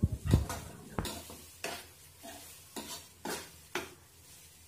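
Slotted metal spatula stirring prawns in thick masala in a nonstick kadai, an irregular run of scrapes and knocks against the pan over a faint sizzle from the frying.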